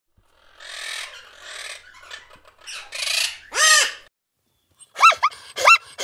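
Parrot squawking: a few harsh screeches, then a clear arched call. After a short pause, a quick run of short rising-and-falling calls begins near the end.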